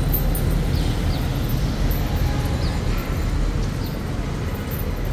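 Steady street traffic noise, mostly a low rumble, with a few faint short high chirps over it.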